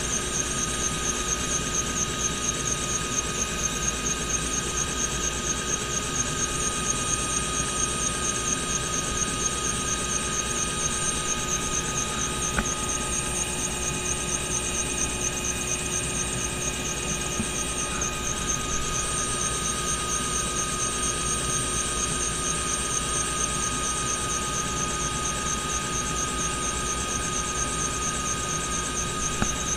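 Bell helicopter's turbine engine and rotor running steadily, heard from inside the cabin: a high steady whine with a fast regular pulsing over a low rumble.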